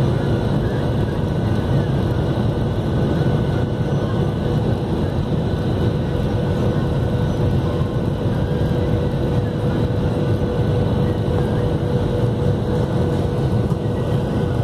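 Steady cabin noise of a Boeing 737-800 on approach: the rush of airflow and the hum of its CFM56 turbofan engines heard through the fuselage, with a faint steady whine running through it.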